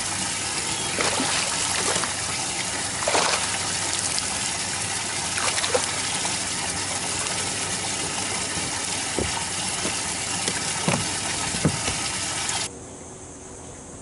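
Steady rushing, gushing water noise with a few short sharp splashes from a hooked fish thrashing at the surface beside the boat. It drops suddenly to a much quieter hiss near the end.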